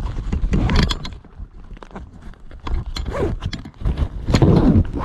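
Close-up rustling, crinkling and knocking of a tackle bag and the plastic lure packages it holds, jostled right against the camera, with heavier bursts about half a second in, around three seconds in and near the end.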